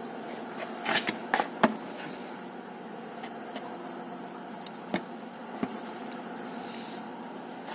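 A few light knocks and clicks from a large plastic tub and a small plastic container being handled and turned over, a cluster of them about a second in and a couple more around five seconds. A steady low hum runs underneath.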